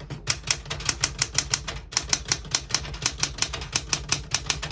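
Keys of a 1969 Smith-Corona Galaxie Deluxe manual portable typewriter typed at a steady pace, each typebar striking the platen with a sharp clack, about seven a second, with a brief pause about two seconds in.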